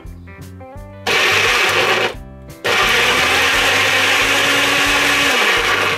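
Uten countertop blender motor running in two bursts chopping tomato chunks: about a second of blending, a brief stop, then a steady run of about three seconds that cuts off just before the end. Background music plays underneath.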